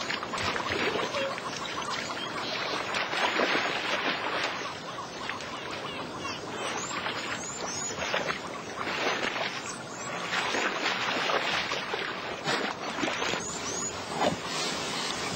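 Water splashing in uneven bursts as young lions wade and play in a shallow pool.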